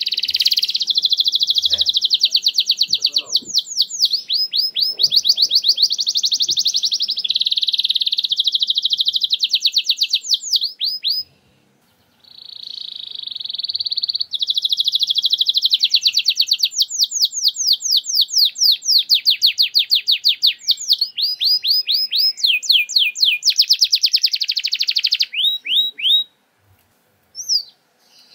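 Domestic canary singing a long, loud song of very fast, high trills and repeated sweeping notes: the rapid-fire 'nembak' song used as a lure to get other canaries singing. The song breaks off briefly about eleven seconds in, then runs on until it stops near the end, with a couple of short notes after.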